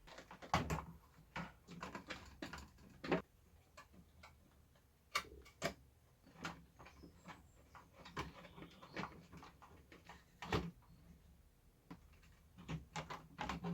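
Scattered light clicks and knocks, irregular in timing and strength, of parts being handled as a tower fan's motor and blade are put together.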